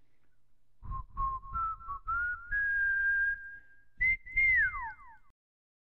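A short whistled tune: a few short notes climbing to one held note, then ending on two falling glides.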